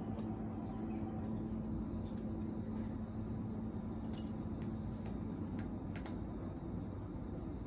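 An Amazon parrot eating dried fruit: a few short, sharp clicks of its beak crunching the food, most of them bunched together between about four and six seconds in, over a steady low hum.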